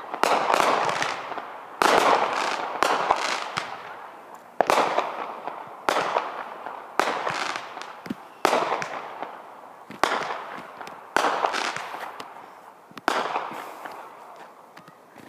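Fireworks shells bursting in the air one after another, about a dozen sharp bangs a second or two apart, each trailing off in a long fading rumble.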